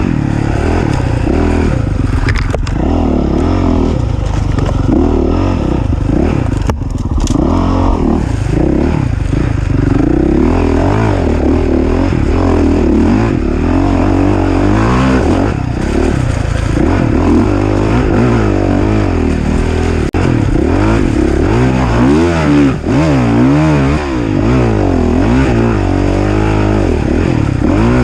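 Off-road racing engine revving up and down without a break as the machine is ridden hard, its pitch rising and falling every second or two, with clattering and scraping mixed in.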